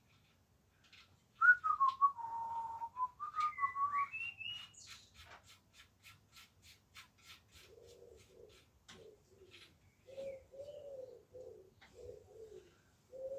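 A man whistling a short wandering phrase that rises at the end, then a quick run of even clicks, then a pigeon cooing in a repeated phrase.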